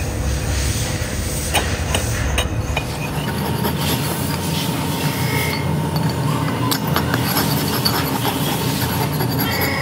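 A flat steel blade scraped back and forth across the rim of a cast aluminium motorcycle wheel hub, metal rasping on metal in repeated strokes with a few sharp clicks. A steady low workshop hum runs underneath.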